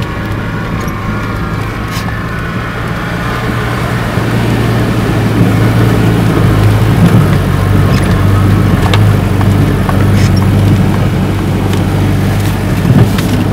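Off-road vehicle engine running steadily under load, heard from inside the cab. It gets louder about four seconds in, with occasional knocks and rattles as the vehicle bounces along a rough, muddy track.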